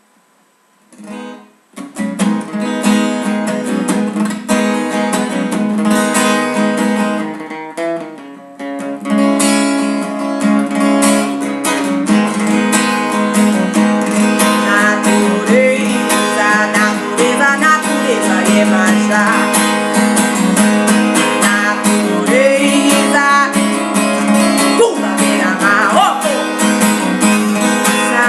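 Acoustic guitar played solo as a song's instrumental opening, chords strummed and picked, starting about two seconds in and easing off briefly about a quarter of the way through before carrying on.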